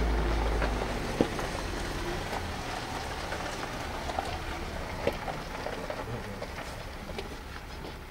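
A vehicle engine idling with a low steady hum shuts off about a second in. After that comes a faint crackling, pattering noise with scattered clicks, slowly fading.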